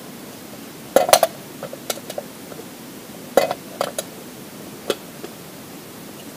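Metal camp cookware being handled: a pot and a small gas stove clink and knock in short sharp clusters, loudest about a second in and again around three and a half seconds, with a last single clink near five seconds.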